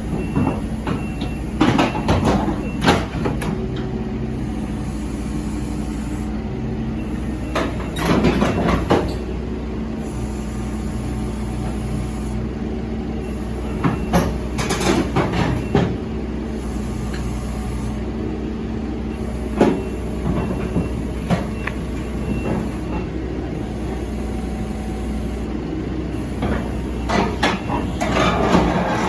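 A CASE excavator's diesel engine running steadily. Bursts of metal clanking and squealing come about five times, as the heavy tracked machine is moved off a self-loader truck.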